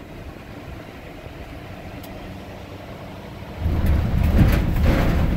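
Vehicle running at low speed, heard from inside the cab: a steady low rumble that turns much louder about three and a half seconds in.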